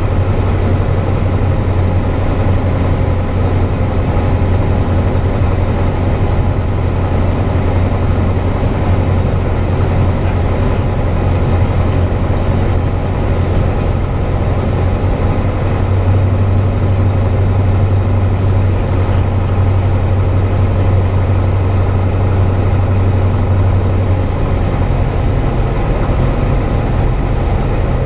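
Piper PA-28's piston engine and propeller droning steadily, heard inside the cabin. Its note changes near the end.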